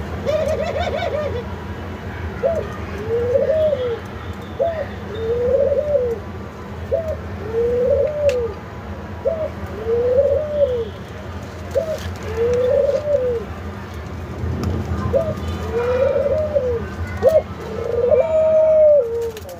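Caged Barbary doves (white 'Australian' doves) giving their bow-coo, about eight times: each coo a short note followed by a longer rolling note, repeated roughly every two seconds with a brief pause near the end. A steady low hum runs underneath.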